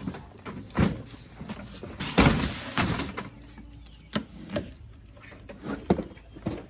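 Cardboard cases and packaging being handled: scattered knocks and thuds, with a longer scraping, rustling stretch about two seconds in.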